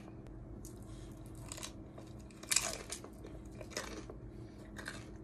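Close-up chewing of a fried crab rangoon, its crisp wonton wrapper crunching in several short bursts; the loudest crunch comes about two and a half seconds in.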